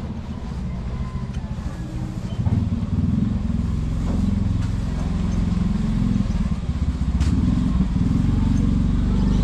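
Small motorcycle engine running at low speed close by, getting louder about two and a half seconds in as it comes up behind.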